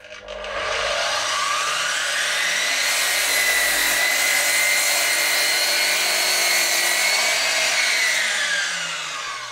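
Belt-driven sliding compound miter saw starting up with a rising whine and cutting through an elm board. Near the end the motor winds down with a falling whine.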